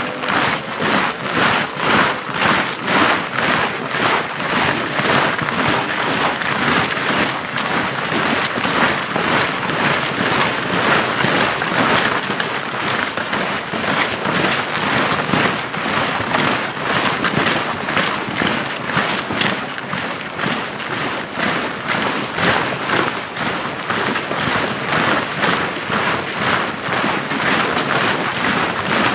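Boots of a marching column of soldiers crunching on packed snow, a dense rhythmic tramp of many feet.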